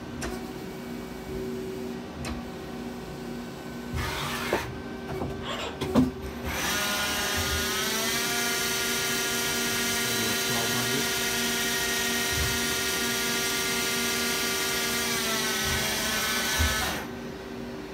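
Hardinge Talent 8/52 CNC lathe running a short program: under a steady machine hum come a few sharp clunks, then the spindle whine rises in pitch, holds steady for several seconds, and winds back down, stopping near the end.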